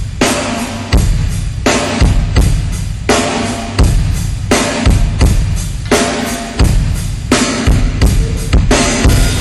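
Live drum kit played in a steady beat for a sound check: bass drum and snare hits with cymbals, a strong hit about every three-quarters of a second.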